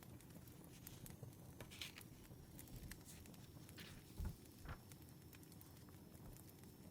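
Wood fire crackling faintly, with scattered small pops and clicks over a soft steady hiss. A louder low thump comes about four seconds in.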